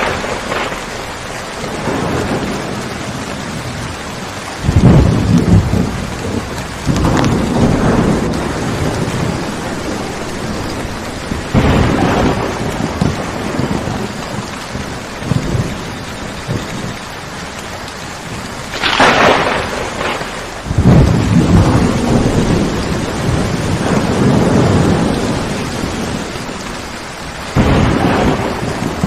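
Steady rain falling, with thunder rolling in several times; one sharper thunderclap comes about two-thirds of the way through.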